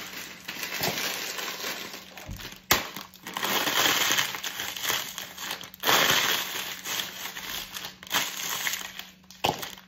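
Crisps crunching and their plastic packets crinkling under a stiletto-heeled boot, in long bursts, with a sharp click about three seconds in.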